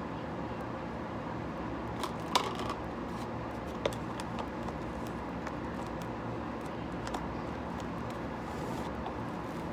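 Slime being handled: a few small clicks and crackles, the loudest about two and a half seconds in, over a steady background hum.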